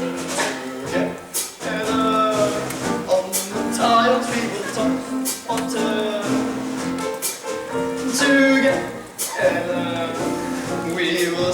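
A song from a stage musical: voices singing over backing music, with light percussion keeping a beat.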